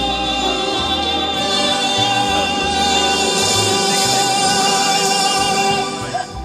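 Loud music with singing voices holding long notes over a moving bass line; it drops away near the end.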